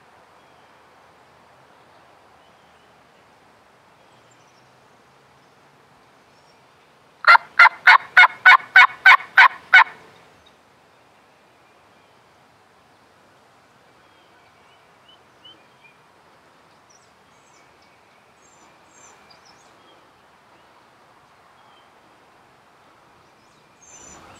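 A loud series of about ten evenly spaced turkey yelps, three or four a second, lasting under three seconds. A few faint small bird chirps follow.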